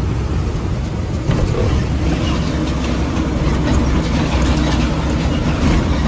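Truck cab while driving at highway speed: the diesel engine runs steadily under road and tyre noise.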